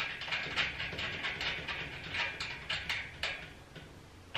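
Small metallic clicks and scrapes as a locking nut is threaded by hand onto a bolt through a metal shelf bracket: quick, irregular ticks that die away about three and a half seconds in.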